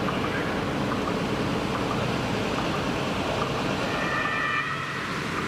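Emergency vehicles on the move: steady engine and road noise, with a faint siren tone about four seconds in.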